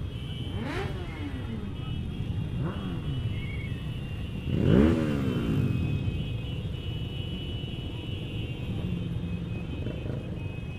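A crowd of motorcycles running at low speed, with engines revved up and back down several times; the loudest rev comes about five seconds in.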